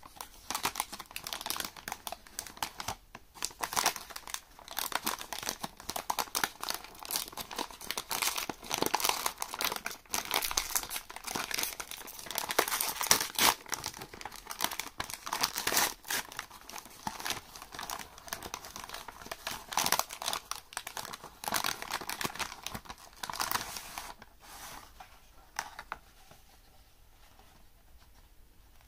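Plastic film wrapper of a packaged eclair crinkling and crackling as hands open it and pull the eclair out on its paper tray. The crackling is continuous and dies away near the end.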